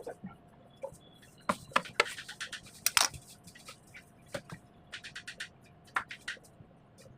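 Series of short scrapes and clicks from a cake-decorating tool working on a buttercream cake, coming in quick clusters with the sharpest ones about one and a half to three seconds in.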